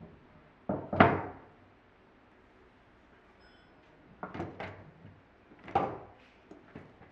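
A wooden plank set down on a wooden workbench, two knocks about a second in, the second the loudest. Then an office swivel chair is laid on the bench, its plastic base, casters and seat knocking against the top several times.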